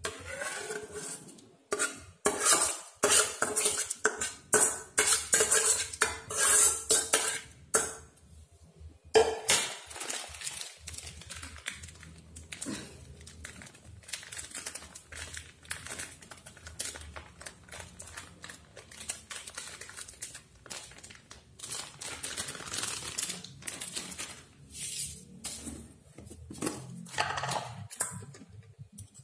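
A metal spoon knocking and scraping against a stainless steel bowl and cooking pot as soft cooked rice is scooped into the bowl. The clatter is dense and loud for the first several seconds, then softer scraping and rustling follows.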